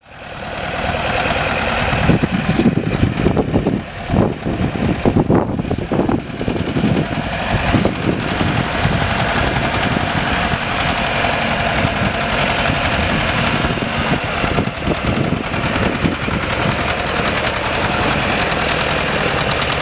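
Heavy dump truck's engine running at idle close by, a continuous low rumble with uneven louder surges in the first few seconds before settling into a steady run.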